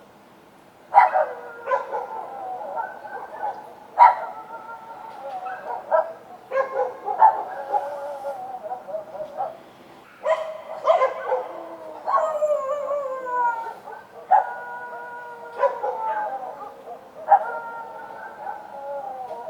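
Several street dogs barking and howling: a run of sharp-starting calls, one every one to three seconds, many held for a second or so and sliding down in pitch, with a longer falling howl around the middle.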